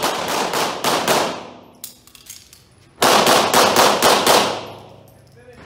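Pistol shots echoing in an indoor range: a quick string of shots in the first second, a short pause, then a fast string of about six or seven shots about three seconds in, each trailing off in reverberation.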